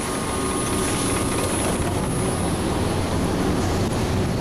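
IMER Koine 35 continuous pump-mixer running steadily, pumping grout through its hose. The drone is dense and low, with a thin high tone over it.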